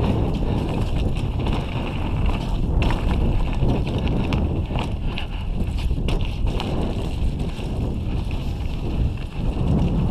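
Wind noise on the camera microphone of a mountain bike descending a dirt trail, over a steady low rumble of the tyres on the ground, with scattered clicks and rattles from the bike over bumps.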